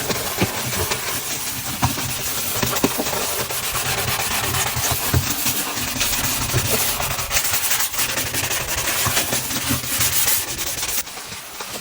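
Steady, rapid scrubbing of a hard surface during cleaning, a dense rasping rub that stops about eleven seconds in.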